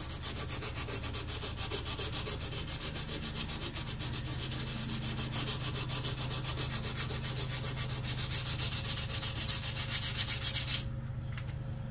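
Sandpaper rubbed by hand along a steel KA-BAR knife blade in quick, even back-and-forth strokes, stopping abruptly about a second before the end.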